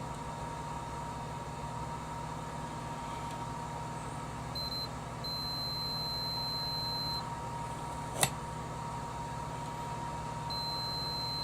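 Multimeter continuity beeper sounding a high steady tone: a short beep, then a longer one of about two seconds, and again near the end, showing that the two wires being probed are connected. A sharp click about eight seconds in, over a steady background hum with a faint whine.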